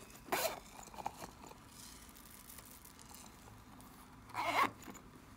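A soft rubber toy squeezed by hand, making two short squishes about four seconds apart, each falling in pitch, with faint soft pattering of small beads dropping onto slime between them.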